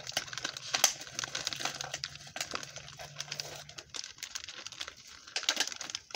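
Clear plastic packaging bag crinkling as it is handled and picked open by hand, in irregular crackles.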